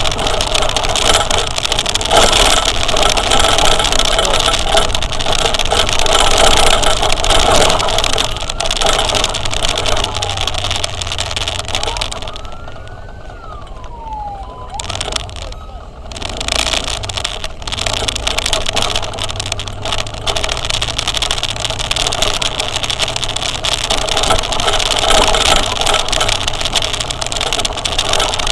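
Steady wind and road noise of a vehicle on the move. It dips quieter about twelve seconds in, where a short tone rises and then falls away.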